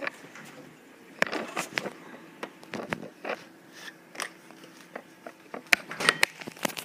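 Scattered clicks, knocks and rustling of a handheld phone camera being moved about while a refrigerator door is opened and searched, with the sharpest knocks near the end.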